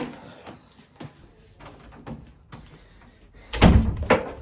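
Footsteps going down a staircase, about two a second. About three and a half seconds in, a door bangs loudly twice in quick succession.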